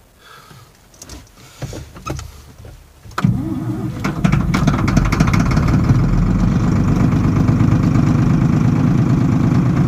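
Diesel tractor engine, given starting ether for a hard start, catches suddenly about three seconds in and settles into a steady, loud run.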